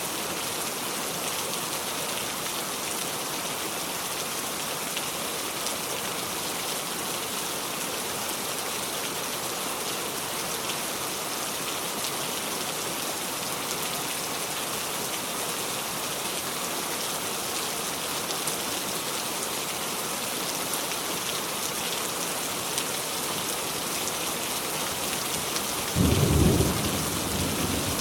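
Heavy rain falling steadily as an even hiss. About two seconds before the end there is a sudden short low rumble lasting about a second.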